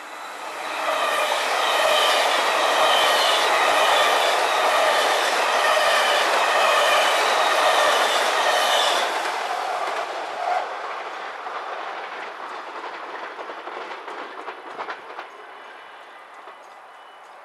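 NS double-deck InterCity electric train passing through at speed. A loud rush of wheels and carriages with a steady whine in it swells about a second in, holds for about eight seconds, then fades away as the train recedes, leaving a few faint clicks near the end.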